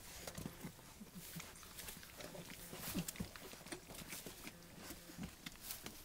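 A litter of four-week-old bullmastiff puppies eating soft puppy food together from a steel bowl: wet smacking and many small clicks, with short low grunts.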